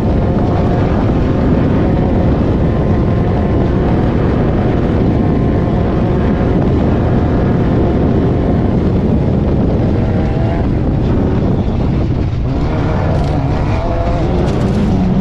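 Off-road race car's engine running hard at steady speed, heard from inside the car, under a dense rush of noise. Near the end a run of sharp rattles and knocks joins it.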